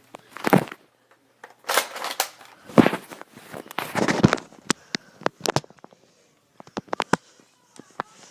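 Nerf Rampage blaster being pumped and fired: several loud clacks and shots over the first four seconds or so, then a run of sharp clicks.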